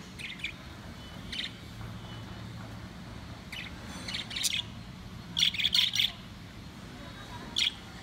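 Caged budgerigars chirping in short, scattered calls, with a quick run of four loud chirps around the middle and a single chirp near the end.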